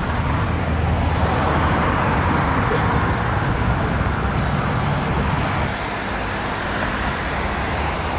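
Steady city road traffic noise, with a vehicle going past in the first half.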